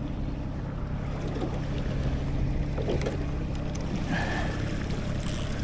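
A boat's motor running steadily at trolling speed, a low even hum over water and wind noise. A short high tone sounds briefly about four seconds in.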